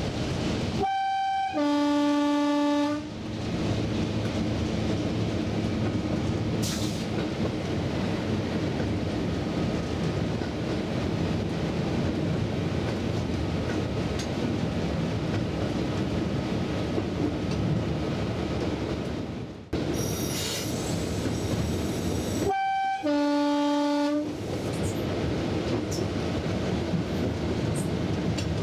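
Class 33 diesel locomotive's two-tone horn sounded twice, a short high note then a longer low note each time, first about a second in and again about 22 seconds later. Between and under the horns, the steady running of the locomotive and its wheels on the track, heard from inside the cab.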